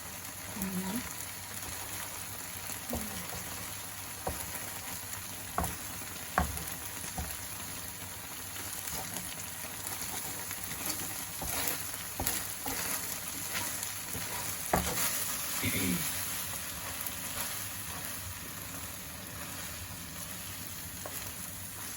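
Tofu and egg in a cornflour-thickened sauce sizzling steadily in a pan on the stove, with a few sharp knocks scattered through.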